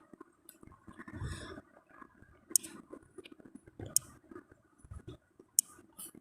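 Light handling of a smartphone: four sharp clicks, the first three about a second and a half apart and the last two close together, with faint rustling and soft bumps between them.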